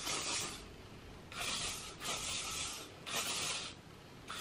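L'Oréal Elnett aerosol hairspray sprayed onto hair in short hissing bursts, about four in the span, each lasting around half a second to a second.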